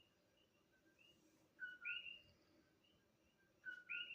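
A bird calling faintly: a short low note rising into an upswept whistle, given twice about two seconds apart, with soft chirps in between.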